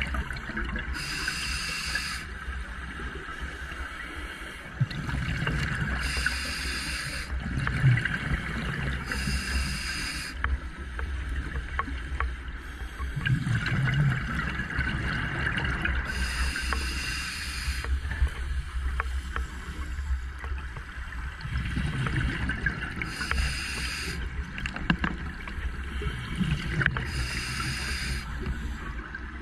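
Scuba diver breathing through a regulator underwater: a hiss of about a second on each inhale, alternating with low rumbling bubbles on each exhale, in a slow, irregular rhythm over a steady low rumble.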